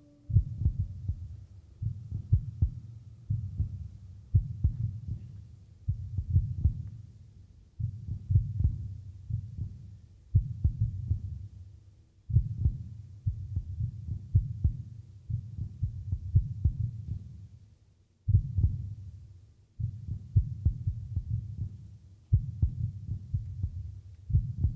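Low, deep pulses, each starting sharply with a cluster of clicks and fading out, repeating about every two seconds in an uneven, heartbeat-like rhythm, as part of a contemporary vocal-ensemble piece's sound.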